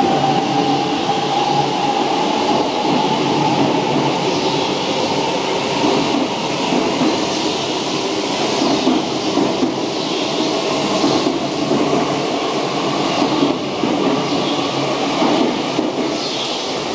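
E4 series Max double-decker Shinkansen pulling out and gathering speed, its cars rolling past with a steady rumble of wheels on rail. An electric motor whine rises in pitch over the first few seconds as the train accelerates.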